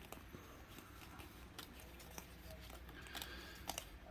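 Faint, scattered light clicks and slides of trading cards being handled and sorted by hand, over a low steady room hum.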